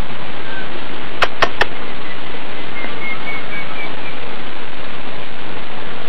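A loud, steady hiss like rushing water, with three quick clicks close together about a second and a half in and a few faint high chirps.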